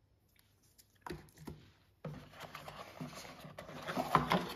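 Cardboard box insert being handled on a table: a couple of light clicks, then continuous scraping and rustling with small knocks that grows louder toward the end.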